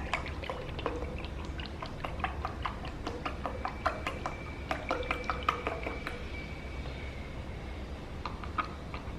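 Milk being poured from a carton into a glass: irregular glugs and splashes through the first six seconds or so, thinning out near the end.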